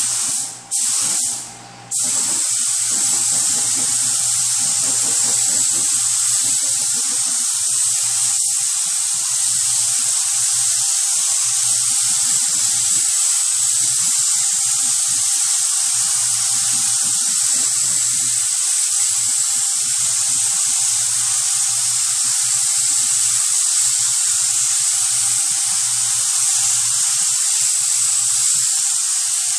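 Automotive paint spray gun spraying clear coat: two short trigger bursts in the first couple of seconds, then a steady hiss of air and atomised paint held on continuously.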